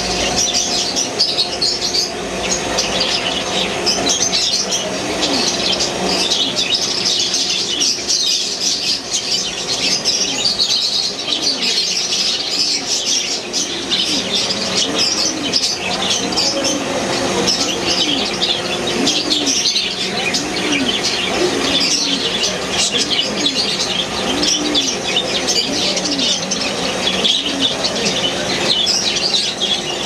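A roomful of caged budgerigars chattering and chirping without a break. Underneath there is a steady low hum and a low note that rises and falls about once a second.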